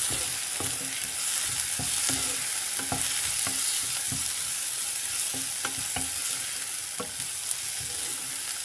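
Chopped onions, green chillies and ginger-garlic paste sizzling in oil in a non-stick kadai, stirred with a wooden spatula that scrapes and knocks against the pan in irregular strokes about twice a second, over a steady hiss of frying.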